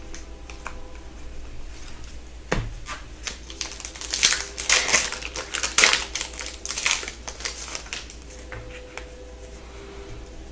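Trading cards and a foil pack wrapper being handled: a sharp tap about two and a half seconds in, then a run of crinkling and scraping clicks between about four and seven seconds.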